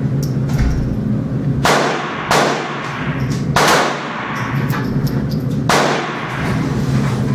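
Walther P22 .22 LR pistol fired four times at an irregular pace, each sharp crack ringing briefly off the walls of an indoor range, over a steady low hum.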